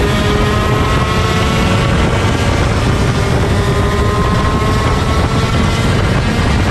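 A 125cc shifter kart's two-stroke engine running hard, its note climbing slowly in pitch, under a heavy rush of wind noise.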